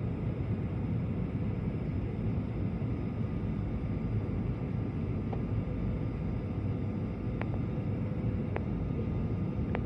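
Steady low rumble of an airliner's jet engines and rushing airflow heard inside the passenger cabin on final approach, with a few faint clicks in the second half.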